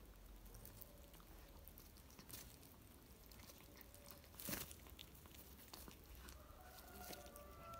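Faint, scattered crunching and clicking of a domestic cat chewing and biting into a pigeon carcass, with one louder crack about four and a half seconds in.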